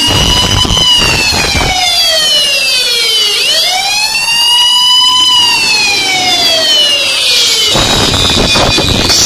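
Siren wail played loud through a DJ sound system during a sound test: the pitch falls for about three seconds, rises again, then falls once more. Deep bass thumps sound under it at the start and come back near the end.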